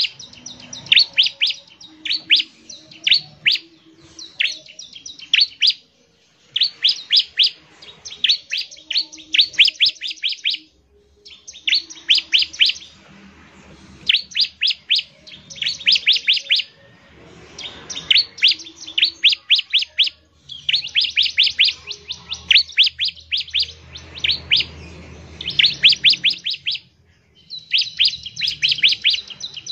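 Bar-winged prinia (ciblek) singing in fast bursts of sharp, high chirps, many quick notes to a phrase, phrase after phrase with only brief pauses. This is the rapid 'nembak ngebren' song that keepers play to call other ciblek.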